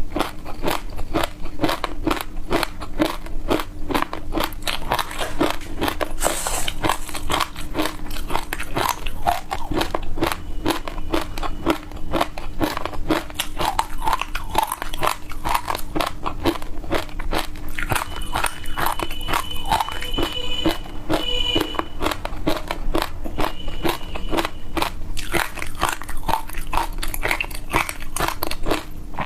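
Close-up crunching and chewing of dry passion fruit seeds, a rapid, continuous run of crisp crackling bites with no pauses.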